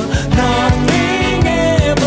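Live band playing pop-rock: drums keeping a steady beat under electric guitar and a man singing.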